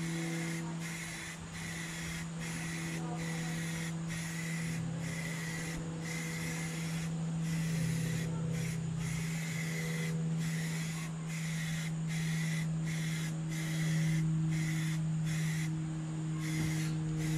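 Aerosol spray-paint can hissing in a long run of short sprays, broken by brief pauses under a second apart, over a steady low hum.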